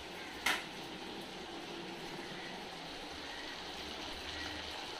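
Batter-coated breadfruit slices deep-frying in hot oil in a kadai: a steady sizzle, with one brief louder burst about half a second in.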